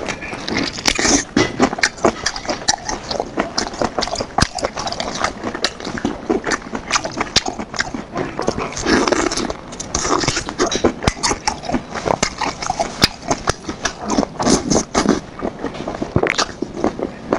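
Close-miked chewing of braised intestine rings: a dense, irregular run of many quick mouth clicks and smacks, with louder, fuller chewing around nine seconds in and again near the end.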